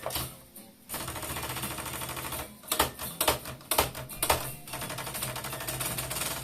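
Brillant Perfekt 320S portable typewriter mechanism rattling steadily, then a handful of sharp, loud key strikes near the middle, then rattling steadily again.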